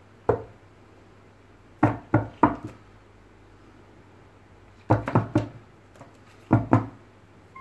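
Sharp knocks on a wooden desktop, coming in quick groups of two or three with pauses of a second or two between them.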